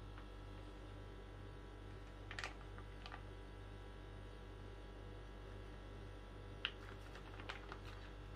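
Faint clicks and crinkles of a soft plastic mayonnaise pouch being squeezed by hand, a few at a time about two and a half seconds in and again near the end, over a steady low hum.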